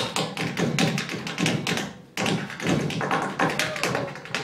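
Tap shoes striking a stage floor in a rapid, irregular rhythm of sharp taps, broken by a brief pause about two seconds in.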